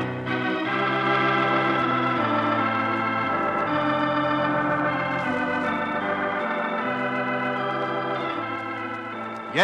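Organ theme music playing slow, sustained chords that change about every second or so, from an old radio transcription disc.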